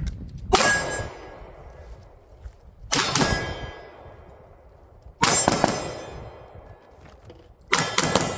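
Pistol shots fired in four quick strings about two and a half seconds apart, each string followed by the ringing of hit steel targets.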